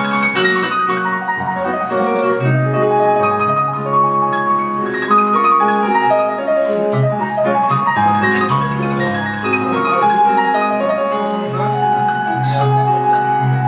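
Piano being played continuously: a steady flow of chords and melody notes over changing bass notes.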